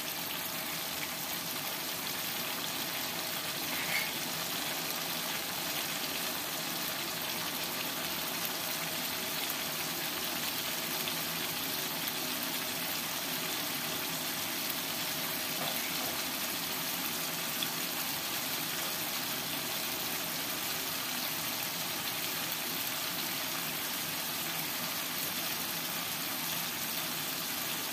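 Blended chili, shallot and garlic paste frying in oil in a wok: a steady sizzle.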